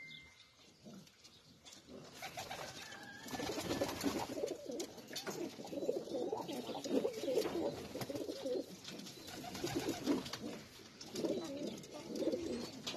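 Racing pigeons cooing over and over. The cooing starts about two seconds in and carries on, with a short lull about ten seconds in.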